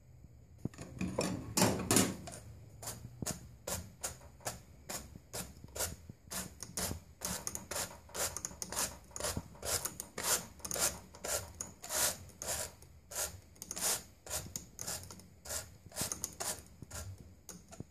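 A hand brush swept over and over across the wire carding cloth of a drum carder full of angora and wool fibre, giving a quick raspy scratch about twice a second.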